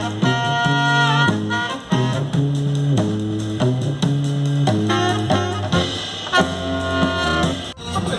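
Small live brass band playing an upbeat jazzy tune: saxophone and trumpet hold notes over a tuba bass line that steps from note to note. The music cuts off abruptly near the end.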